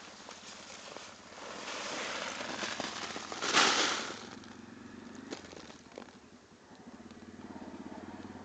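Rustling and crackling as a pepper plant is pulled up by hand out of the soil and its plastic mulch, loudest about three and a half seconds in, followed by a few sharp clicks.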